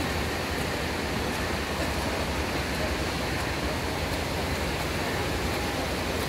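Steady, even rushing noise of a swimming-pool venue during a race, with no single sound standing out.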